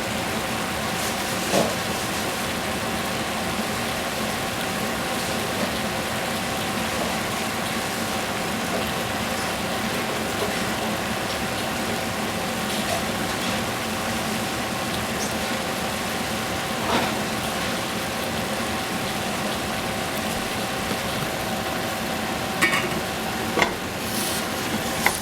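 Food sizzling as it fries in a hot pan, an even steady frying sound over a constant hum, with a few sharp clicks of a utensil against the pan, one near the start, one midway and a couple near the end.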